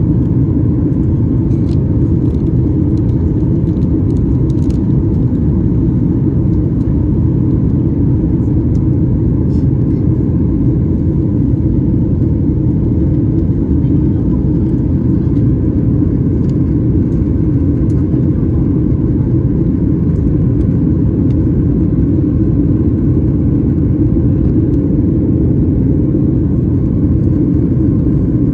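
Steady drone of a Boeing 737's jet engines and the rushing air, heard inside the cabin while the airliner climbs after takeoff.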